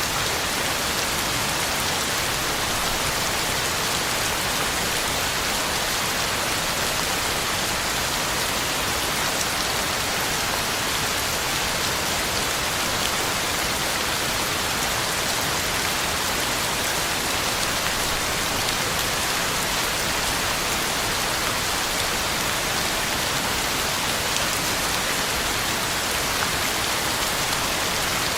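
Heavy rain falling steadily: an even, unbroken hiss of drops hitting the ground, with no thunder or other events.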